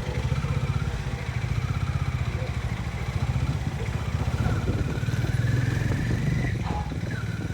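Harley-Davidson X440's single-cylinder engine running under way with its rapid firing pulse. About four seconds in it picks up revs with a rising whine, then eases off near the end.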